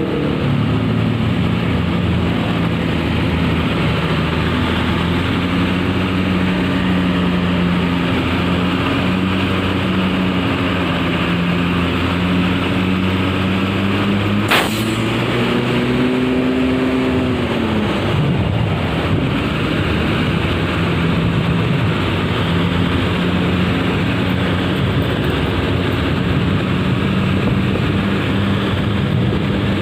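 Bus engine running under way over steady road noise. About halfway through there is a single sharp click; the engine pitch then climbs for a few seconds and falls away quickly before settling back to a steady note.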